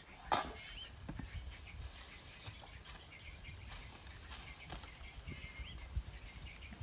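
Rustling and footsteps on dry leaf litter, with a sharp rustle just after the start and scattered crackles after it. A few faint bird chirps in the background.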